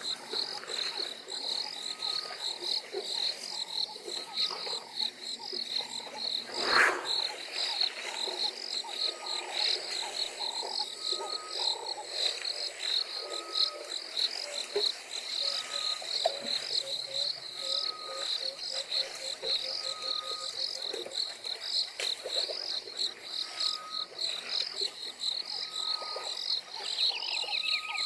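Dawn bushveld ambience: a steady, evenly pulsing insect chorus, with a bird's short whistled note repeated every second or two. About seven seconds in there is one brief, louder rush of sound, and near the end a short call falls in pitch.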